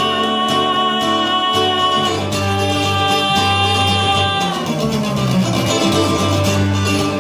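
Live acoustic guitar strummed in a steady rhythm under a woman's voice singing long held notes, which slide to new pitches near the end.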